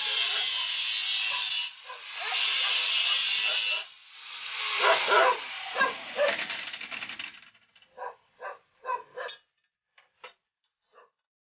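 Handheld angle grinder grinding a steel chainsaw guide bar in a high, hissing whine, in two short passes and then a longer one that dies away about seven seconds in. In the second half a dog barks in a few short bursts.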